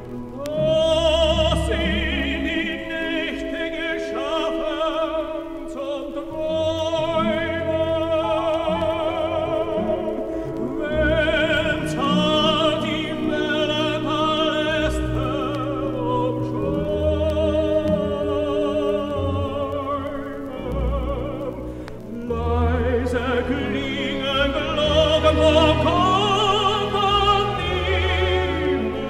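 Operetta number from an old vinyl recording: a solo voice singing with wide vibrato over an orchestra, with a brief lull about three-quarters of the way through.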